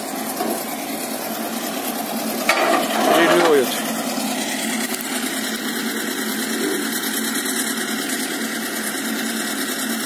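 TDT-55 tracked logging skidder's diesel engine running steadily at idle, with a brief loud voice about two and a half seconds in.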